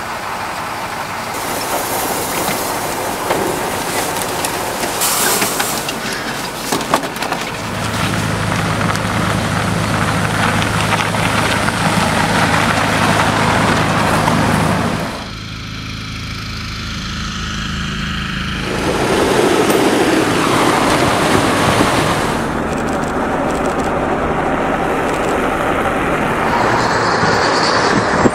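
Diesel engines of military trucks and eight-wheeled armoured personnel carriers running and driving by, with a steady low engine drone for several seconds in the middle and the sound shifting between vehicles.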